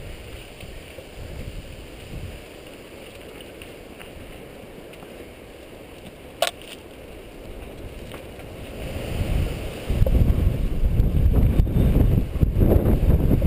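Wind rushing over the microphone of a camera on a mountain bike, along with the rumble of the tyres on dirt singletrack. A single sharp click comes about halfway through. About nine seconds in, the wind buffeting grows much louder and lower.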